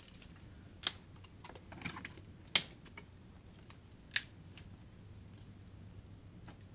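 Small wood campfire crackling: scattered faint ticks and three sharp pops, about one, two and a half and four seconds in.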